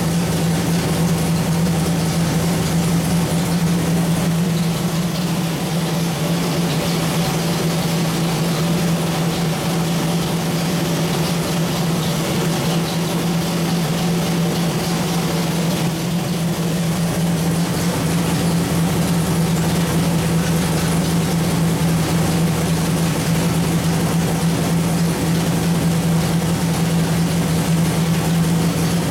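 Small-block Chevrolet 427 V8, built for 600 hp, running on an engine dyno at a steady speed with no revving. It holds one constant low tone with an even level.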